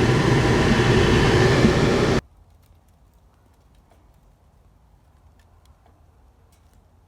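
Mr. Heater Big Maxx gas unit heater running, a steady blower and burner noise, which cuts off suddenly about two seconds in. After that there is only a faint background with a few light ticks.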